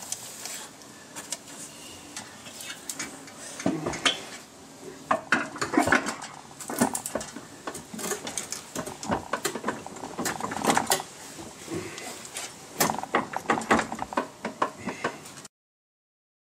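Irregular metal clanks, knocks and scrapes as a BMW E36 M3's transmission is wrestled by hand against the engine from underneath, the bellhousing refusing to seat because the new clutch is a tight fit. The sound cuts off suddenly about a second before the end.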